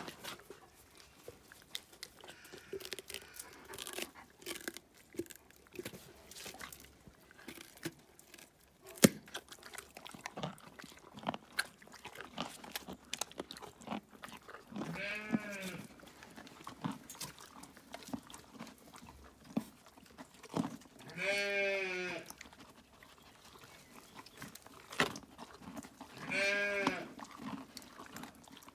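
A horse crunching carrot pieces fed from the hand, with sheep bleating three times; the middle bleat is the longest and loudest.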